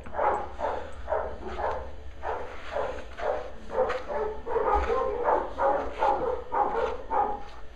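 Dog giving a rapid series of short, pitched vocal calls, about three a second.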